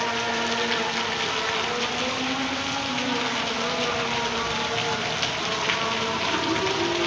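Heavy rain falling steadily, with faint, drawn-out tones underneath that waver slowly in pitch.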